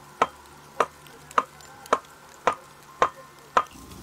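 Axe blows on wood in a steady rhythm: seven sharp strikes, a little over half a second apart, each with a short ring.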